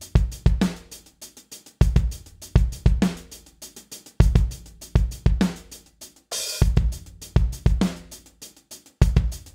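Programmed drum-kit groove from Steinberg Groove Agent, with kick, snare and hi-hats in a half-time pattern, run through the Linda Audio Sonicrusher compressor plugin. A longer, hissing cymbal hit comes about six and a half seconds in.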